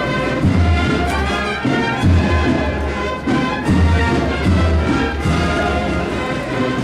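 Brass band playing a slow procession march: sustained brass chords over a deep, regular drum beat.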